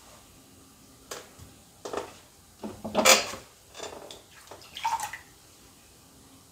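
Wet hands and a sponge working in the potter's throwing-water bowl: a string of about six short splashes, drips and light knocks, the loudest about three seconds in.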